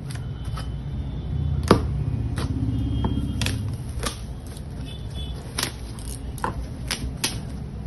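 Cardboard packaging being handled and opened by gloved hands: box flaps knocking and scraping, with a string of sharp taps, the loudest about two seconds in. A low steady rumble runs underneath.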